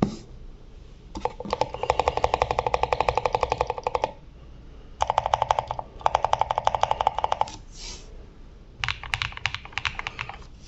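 Keystrokes on an AC064 mechanical keyboard with lubed Akko Rose Red linear switches, Holee-modded stabilizers and foam mods. Two fast runs of rapid key presses, each about three seconds, are followed near the end by a slower scatter of presses.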